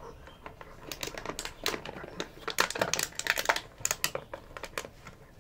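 Labrador retriever and Doberman puppy mouthing and play-biting each other: a quick run of wet clicks, smacks and teeth snaps from their jaws, thickest about halfway through.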